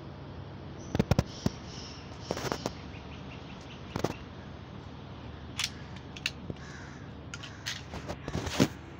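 Phone-camera handling noise: clusters of short, sharp clicks and knocks as the phone is moved and bumped, the loudest near the end, over a steady low hum.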